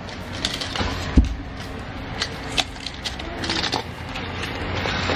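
Battery-powered Takara Tomy Plarail toy trains after a derailment: a low mechanical hum of a toy motor and gearing, with plastic clicks and knocks and one sharp thump about a second in.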